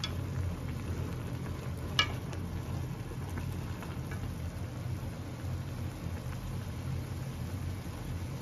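Ramen broth boiling in an aluminium Korean ramen pot with a steady low rumble while chopsticks stir the noodles. One sharp click about two seconds in as the chopsticks knock against the pot, with a few fainter taps shortly after.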